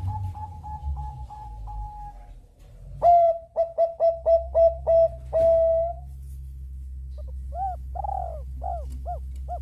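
Zebra doves (perkutut bangkok) cooing in rapid series of short notes. A quicker, higher run comes first, then a louder, lower run of staccato coos ending in a held note about five to six seconds in, then a quieter run of short rising-and-falling coos near the end. A low steady background hum runs throughout.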